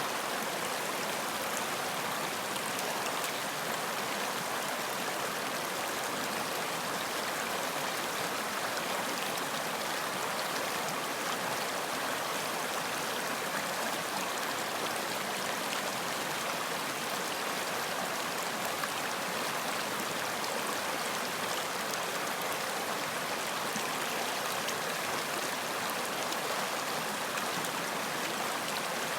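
Running water: a stream flowing steadily, an even rushing with fine splashy detail and no change throughout.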